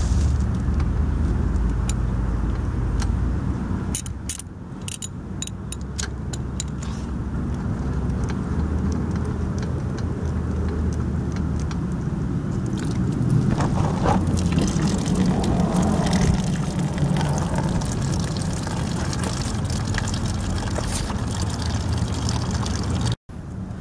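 Metal tool clicks as a socket loosens the scooter's coolant drain bolt, then distilled flush water running out of the cooling system through a drain hose, over a steady low rumble.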